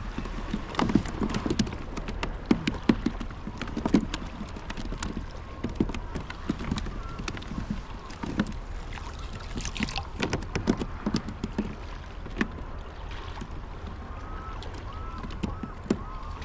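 Water splashing and irregular knocks as a landing net is swept through shallow water beside a kayak, scooping for herring.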